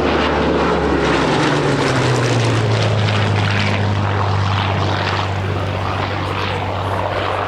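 Hawker Hurricane Mk.I's Rolls-Royce Merlin V12 engine and propeller passing in flight; the engine note drops in pitch between about one and two seconds in as it goes by, then holds steady.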